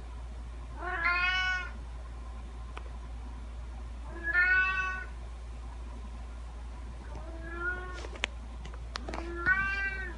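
Domestic cat meowing four times, a few seconds apart; the third meow is fainter. A few light clicks come just before the last meow.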